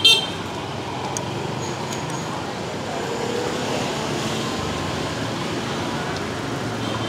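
Steady street traffic noise with a few faint light clicks.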